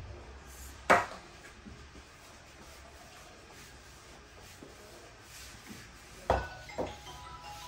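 Long thin wooden rolling pin rolling out a large sheet of dough on a tabletop, with a sharp wooden knock about a second in and two more close together near the end.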